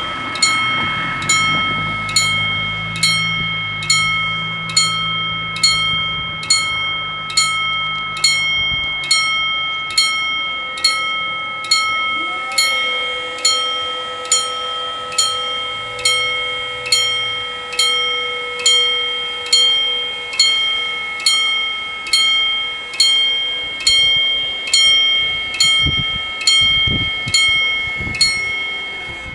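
Level crossing warning bell striking in a steady, even rhythm, each stroke ringing on. It sounds while the barriers are lowered for an approaching train and stops near the end, once the barriers are down.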